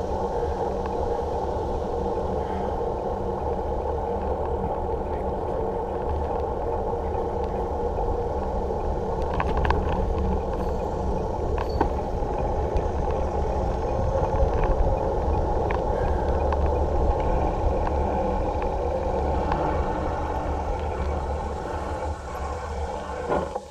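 Steady low rumble of wind and tyre noise picked up by a bicycle-mounted action camera riding on asphalt, with a few sharp clicks about ten seconds in. It eases off slightly near the end.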